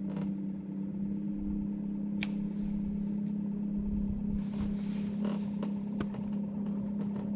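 A boat's motor humming steadily at one low pitch, with a few faint clicks and taps over it.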